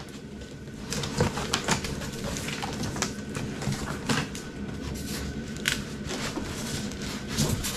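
A cardboard shipping box being opened by hand: irregular clicks, scrapes and rustles of the cardboard flaps, packing tape and wrapping.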